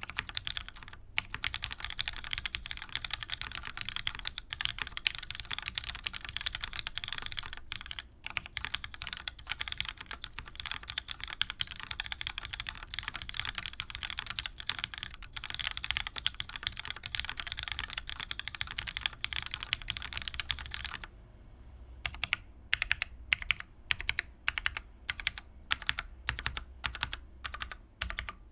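Typing on a Merisi Works 500C/M prototype mechanical keyboard with an aluminium top-mount plate, GMK Dolch keycaps and lubed, broken-in Cherry MX2A Black linear switches. Dense, fast keystrokes for about twenty seconds, then slower separate keystrokes, some sharper and louder, to the end.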